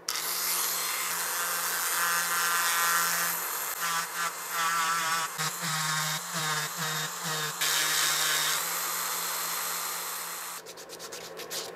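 Handheld electric rotary tool with a small sanding drum running at a steady high whine as it grinds a joint into a wooden lure body. Its pitch wavers in the middle while the drum bites into the wood. The motor stops near the end, followed by a few light clicks.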